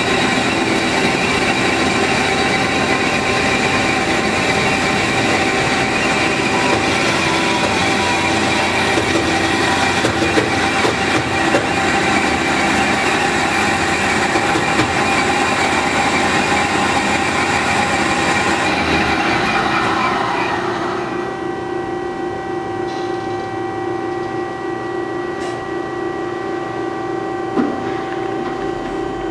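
HEM WF160LM-DC horizontal band saw running, a steady machine noise with several held tones. About 20 seconds in, the brighter noise dies away and a quieter steady hum with tones remains.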